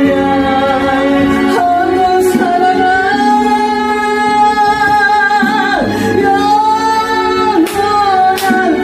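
A woman singing a slow gospel hymn over instrumental accompaniment, holding two long notes with vibrato, each ending in a short drop in pitch.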